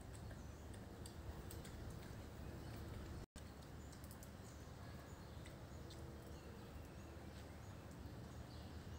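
Faint outdoor background noise with a few scattered faint bird chirps and small clicks. The sound cuts out for an instant about three seconds in.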